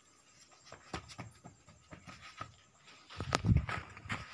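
Faint scuffing and clicks of bare feet on dirt ground, then about three seconds in a sudden louder scuffle with a sharp thump as one man lunges at another.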